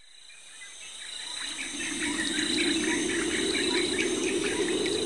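Outdoor nature ambience fading in over the first two seconds: crickets trilling steadily, with birds chirping over them and a low steady rush underneath.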